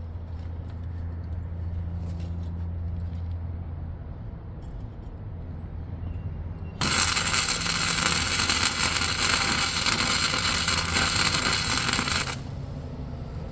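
Flux-core wire welding with a Miller Multimatic 200: a steady low hum, then about halfway through the arc strikes and crackles loudly for about five seconds before cutting off sharply.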